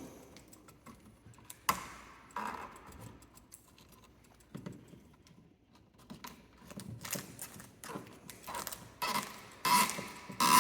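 Hands working electrical wires at a switch box, joining the neutral: scattered small clicks and rattles of wire and connector handling, sparse at first and busier in the second half.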